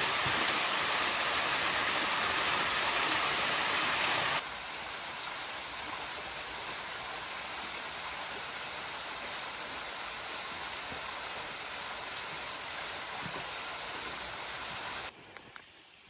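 Small waterfall: thin streams falling down a rock face make a steady rush of falling water. About four seconds in it drops abruptly to a lower level, and just before the end it cuts away almost to quiet.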